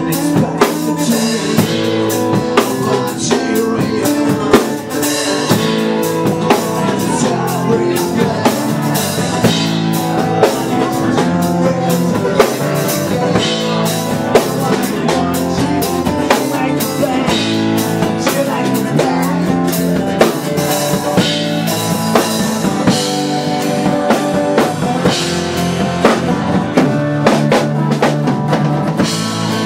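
A rock band playing live, with drums hitting steadily under strummed, amplified acoustic guitars and a singer on a microphone.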